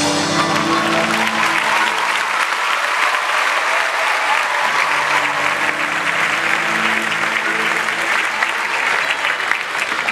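Audience applauding steadily, with the show's music playing underneath.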